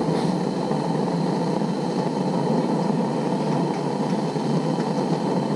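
A Coleman pressure lantern burning with a steady hiss, just lit.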